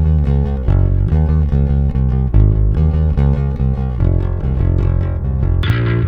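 LTD AP-204 electric bass played on its neck pickup with the bass boosted: a riff of quick plucked notes with a heavy low end. Near the end the same playing switches abruptly to a brighter, amp-simulated tone.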